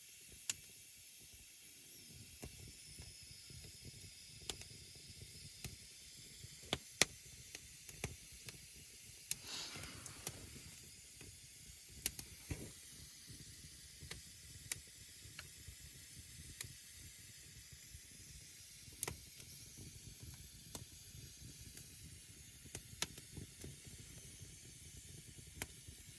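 Wood campfire burning: irregular sharp crackles and pops over a steady hiss, with a brief louder hiss about ten seconds in.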